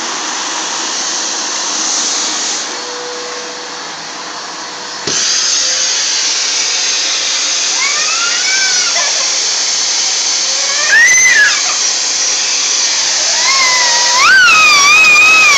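Household vacuum cleaner running steadily, its sound stepping up louder about five seconds in. A few high rising-and-falling squeals ride over it in the second half.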